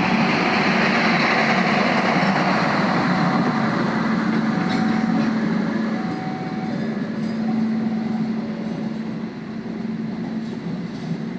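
Train running on the rails: a steady rumble with a low hum, easing off somewhat in the second half.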